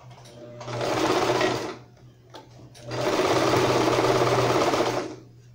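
Electric household sewing machine stitching a seam through fabric in two runs: a short run about half a second in, then a longer run of about two seconds after a pause.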